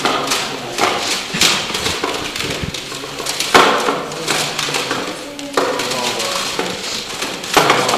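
Plastic CD cases clattering and knocking together in irregular bursts as they are rummaged through in a hurry, busiest a few seconds in.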